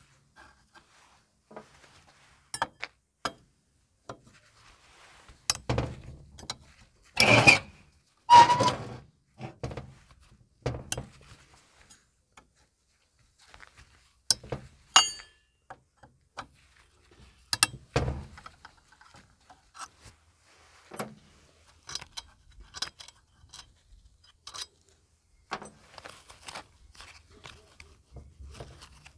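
Metal hand tools knocking and clinking against an aluminium scooter engine while its intake manifold bolts are worked with a socket wrench: scattered short clicks and knocks, with two louder rattling scrapes about seven and eight seconds in.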